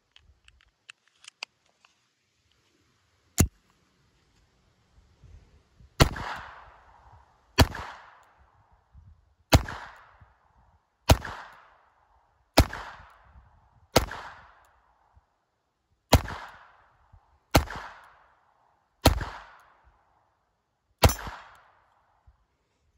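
.22 LR pistol fired ten times in slow, aimed single shots about one and a half seconds apart, each sharp crack trailing off in a short echo. A few small handling clicks and one sharp clack come a few seconds before the first shot.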